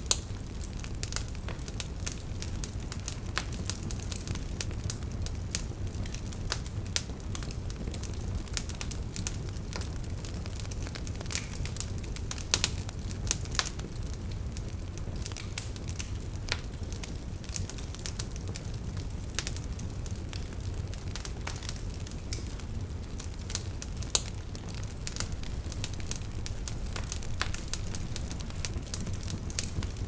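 Wood fire crackling: irregular sharp pops and snaps over a steady low rumble, a few louder pops now and then.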